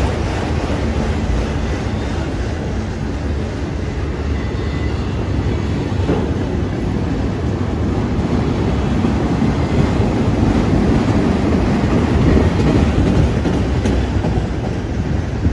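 CSX freight train of autorack cars rolling past close by: a loud, steady rumble of steel wheels on the rails.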